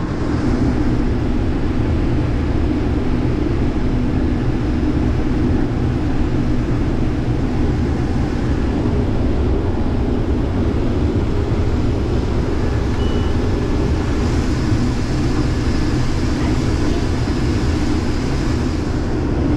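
Case IH 2388 combine running steadily, a loud, even machine noise with no change in pace.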